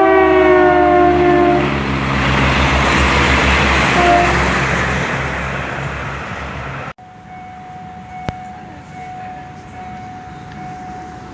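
Train horn sounding one long blast whose pitch sags slightly, with a short second toot about four seconds in, over loud rushing train noise. About seven seconds in the loud noise cuts off suddenly, leaving quieter train running noise with a steady thin hum.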